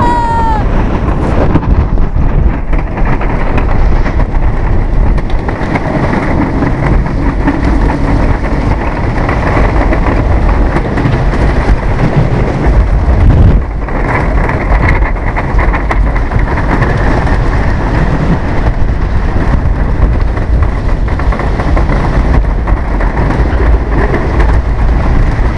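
Roller coaster train running fast over a wooden coaster's track: a loud, continuous rumble and rattle mixed with wind rushing over the microphone, dipping briefly about halfway through.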